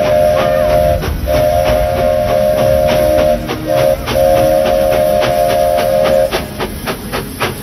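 Steam locomotive whistle sounding long, long, short, long, the standard grade-crossing signal, over the engine's steady exhaust chuffs, which stand out alone near the end once the whistle stops.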